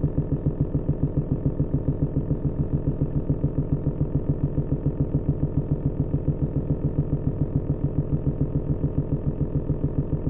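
A small motor running steadily with an even putter of about seven beats a second, like an engine at idle.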